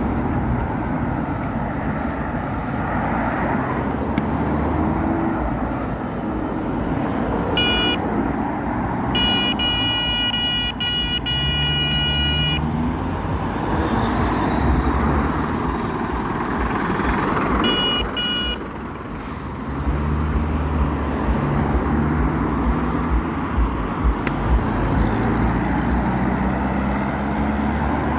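Steady engine and road rumble of traffic, cut by car horn honks: a short honk about 8 s in, a long blast of about three seconds from about 9 s, and another short honk about 18 s in.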